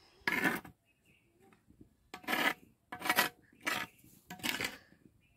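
A steel spoon scraping against the inside of an unglazed clay cooking pot while stirring chicken curry: five short scrapes, the first about half a second in and the rest in quicker succession from about two seconds on.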